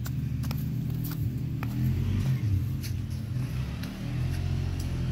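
ATV engine running at low revs, a steady low hum that swells a little about two seconds in.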